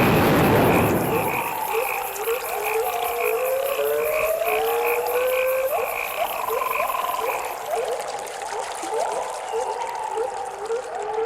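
Frog-like animal chorus: many repeated rising whistled calls overlapping, with a steady rapid pulsing call higher up. A loud rush of noise covers the first second and a half.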